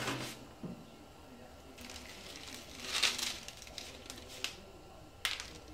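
Flexible plastic mesh dehydrator screen peeled off its tray and flexed, rustling and crinkling, as dried celery pieces scatter onto a paper plate. The loudest rustle comes about three seconds in, and a sharp tick comes near the end.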